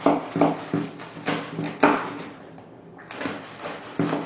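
Knife sawing through a crusty baguette on a wooden cutting board: a run of crunching strokes, about two a second, with a short pause a little past the middle.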